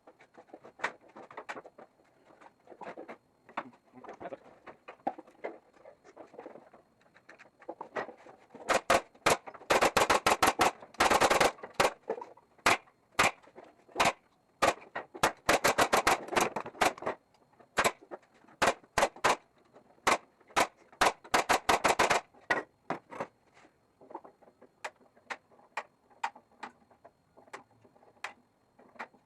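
Staple gun firing repeatedly, sharp shots in quick runs, several a second at the fastest. Fainter clicks and taps come before and after the runs.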